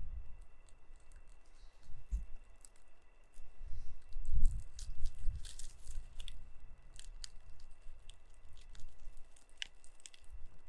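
Scattered sharp crackles and rustling, with irregular low thumps and rumbles, the strongest about four seconds in.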